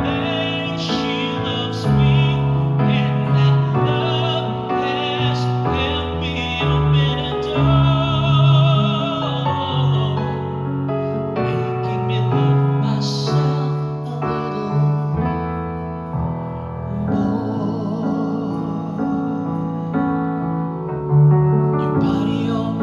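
Music: a singer holding notes with wide vibrato in an operatic style, over piano accompaniment.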